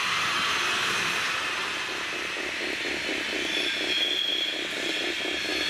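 Steady whirring of small electric motors from a model railway layout, joined about halfway by a fast, even pulsing of roughly four to five beats a second.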